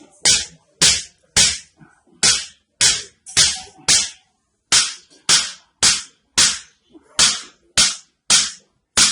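Sharp slaps struck in a steady rhythm, about two a second, with two brief pauses, as in a slapping or striking treatment on a person's back. Each slap is loud and dies away quickly.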